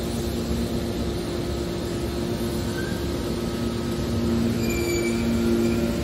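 Hydraulic scrap metal baler running, its power unit giving a steady hum with two low tones. A brief high squeal comes about two-thirds of the way through.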